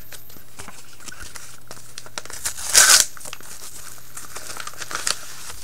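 A paper mailing envelope crinkling as it is handled and torn open, with one loud rip about three seconds in.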